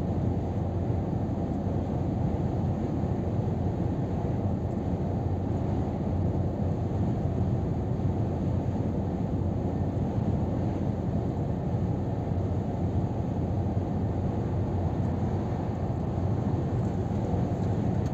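Scania R500 truck cruising at steady motorway speed, heard from inside the cab: an even drone of engine and road noise, mostly low-pitched.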